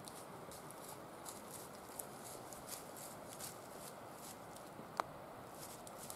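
White-tailed deer walking through dry fallen leaves: soft, irregular crunching and rustling of its steps, with one sharp click about five seconds in.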